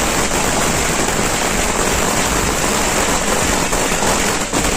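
A string of firecrackers going off in rapid succession: a loud, dense, continuous crackle of pops that blur into one another.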